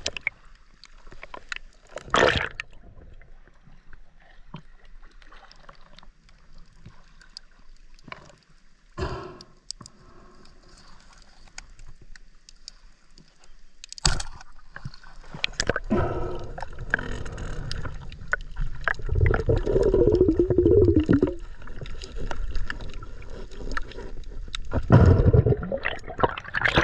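Underwater gurgling and churning picked up by a submerged camera, with scattered knocks and clicks and a sharp clack about halfway through. Heavier bubbling and thudding fill the last ten seconds.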